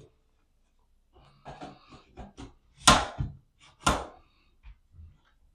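Handling noises: a few light clicks and taps, then two sharp knocks about a second apart, followed by fainter taps.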